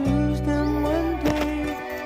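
Slow background music with held chords; the low notes drop out near the end.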